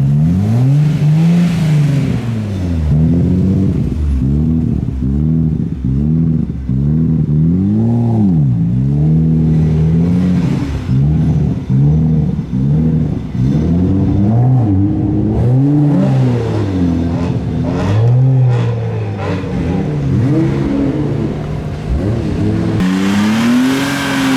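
A car engine revved over and over, its pitch rising and falling about once a second, then held high near the end.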